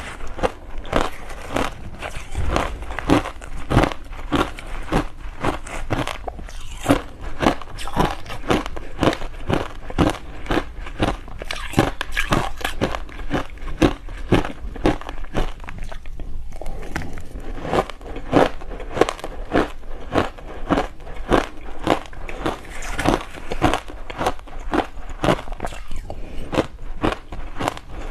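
Crushed ice with passion fruit pulp being bitten and chewed close to the microphone: loud, repeated crunching, about three crunches a second, with a brief lull about halfway through.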